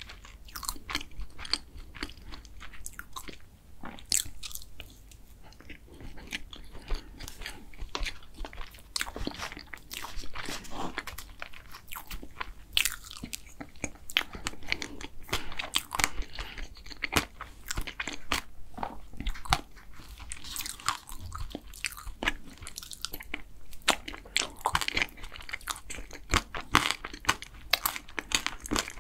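Close-miked chewing and wet mouth sounds of someone eating soft chocolate cake and ice cream, a steady run of small sharp clicks with no talking.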